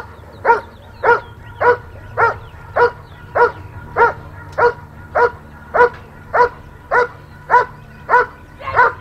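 German shepherd barking at a protection helper in a steady, even rhythm, about fifteen alike barks a little under two a second: the continuous bark of a dog holding the helper at bay in a protection routine.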